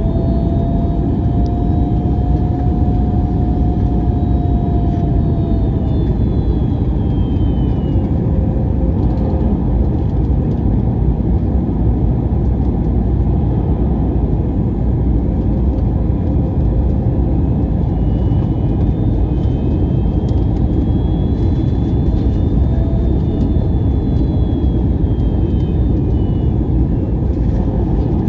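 Airliner cabin noise inside an Airbus A321-200 in flight: a steady, loud, deep rush of airflow and jet engines. A faint tone rises and falls slowly in pitch over it.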